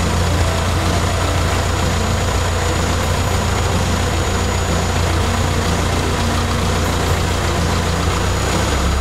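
Cessna 152's four-cylinder Lycoming piston engine and propeller running steadily at low power, heard from inside the cabin as a loud, even low drone. The engine note shifts slightly near the end.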